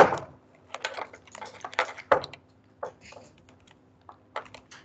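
Typing on a computer keyboard: irregular clicks of keys, with a sharp louder click at the very start, over a faint steady low hum.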